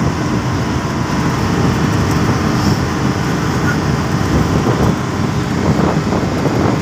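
Engine and road noise of a coach bus cruising at motorway speed, heard from inside the driver's cab: a loud, steady rumble.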